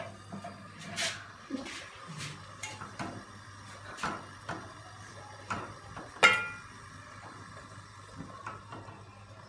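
Metal ladle stirring pheni in milk in a metal pot, knocking and scraping against the pot's side in irregular clinks; the loudest knock comes about six seconds in.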